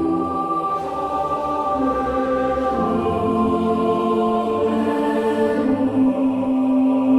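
Background music of sustained choir-like voices, long held chords that shift to new notes a couple of times.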